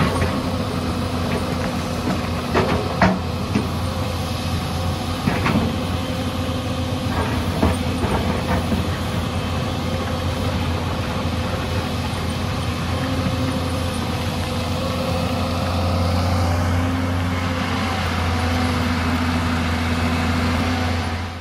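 Hyundai 220LC crawler excavator's diesel engine running steadily as it digs, with several short clanks and knocks of the bucket on rock and soil in the first half. The engine grows louder and its note rises about three-quarters of the way through as the machine works harder.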